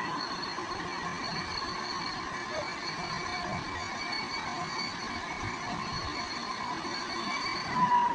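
Excavator running steadily, a constant machine noise with a thin high whine held at a steady pitch.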